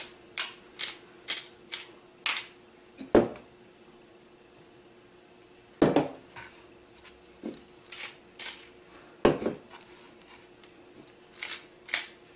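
Salt and pepper being shaken and ground over raw floured rabbit pieces on a plastic cutting board: a quick run of short sharp shakes in the first couple of seconds, then a few louder knocks as the shakers are set down and the meat is handled on the board.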